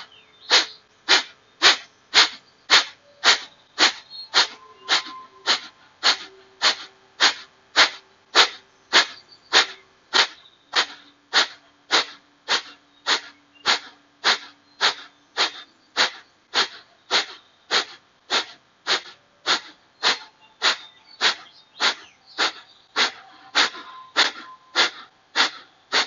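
Kapalabhati (skull-shining) breathing: short, forceful exhalations pushed out through the nose by snaps of the belly, about two a second in a very even rhythm.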